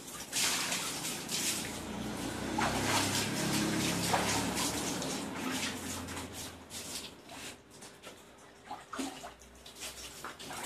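Water splashing and sloshing in a plastic tub as an animal is washed by hand, with a garden hose running into it. The sound is loud and continuous for the first six or seven seconds, then drops to scattered smaller splashes.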